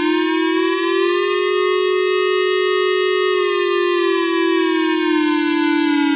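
Warning siren wailing as an earthquake alert: one slow rise in pitch over the first second or two, held steady, then falling back near the end.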